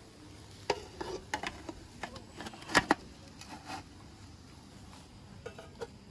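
Aluminium steamer pot clinking and clanking as its tier is set over the pot of water and the domed lid is handled. A quick run of metal knocks fills the first four seconds, the loudest about three seconds in, and two lighter clinks come near the end.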